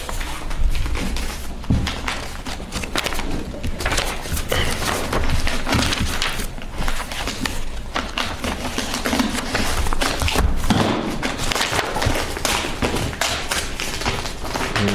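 Sheets of paper rustling and crackling as a thick bundle of pages is leafed through quickly, with occasional soft thumps as the papers and folders are handled on a table.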